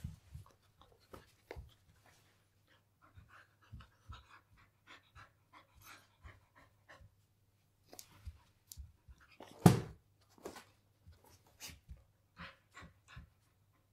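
Samoyed panting in quick puffs while moving about, with soft clicks and one louder thump about ten seconds in.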